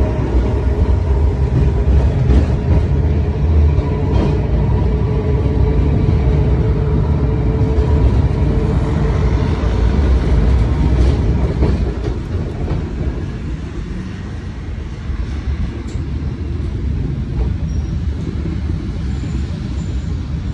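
City tram running along its rails: a steady low rumble with a faint steady whine over it. The rumble drops noticeably about twelve seconds in, as the tram moves onto grass-covered track.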